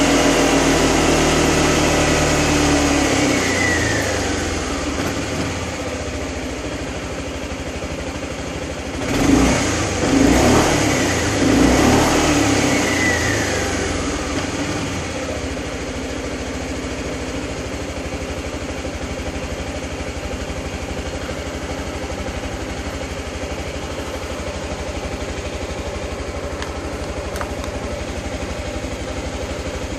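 Suzuki Burgman/Skywave scooter's single-cylinder four-stroke engine running with the rear wheel turning off the ground: the revs fall away over the first few seconds, three quick throttle blips come about nine to twelve seconds in, then it settles to a steady idle. The dealer-mode display reads C00, no stored fault codes.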